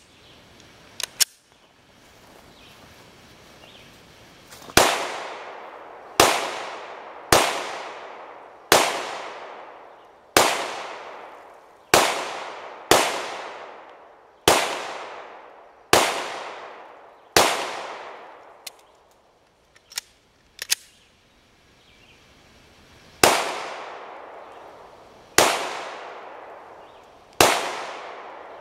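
Glock 17 Gen 3 9mm pistol fired in single shots, thirteen in all, about one to one and a half seconds apart, each followed by a decaying echo. A break of about six seconds partway through holds only a few light clicks.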